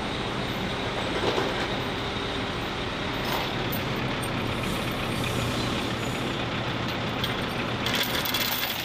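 Steady engine and machinery noise inside a cargo aircraft's hold as a fuel truck is driven aboard, an even rumble and hiss with no break.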